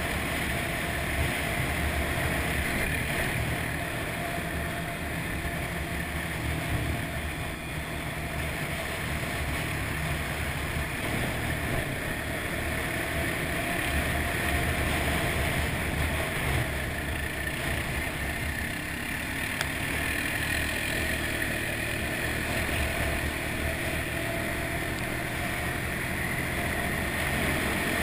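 ATV engine running steadily while riding along a gravel trail, mixed with a rush of wind on the microphone.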